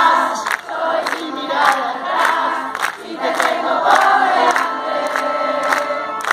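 Concert audience singing along in chorus with a live band, over a steady beat of sharp strikes a little under two a second.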